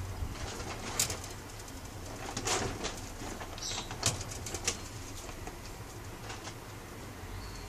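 Peach-faced lovebird giving a few short, scratchy calls and sharp clicks while a finger pokes at it through the cage bars, over a low steady hum.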